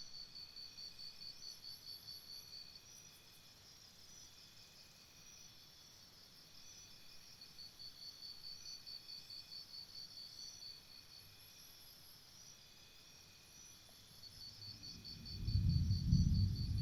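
Forest insects, cricket-like, trilling in high, fast pulsed bouts of about three seconds with short pauses between, over a steady background hum of other insects. Near the end a loud low rumble starts.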